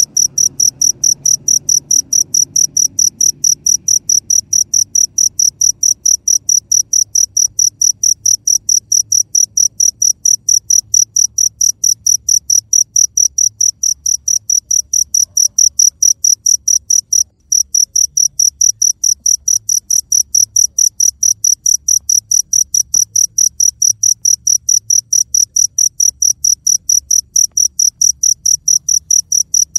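A cricket chirping loud and steady at night, about three short high chirps a second, with one brief break a little past halfway.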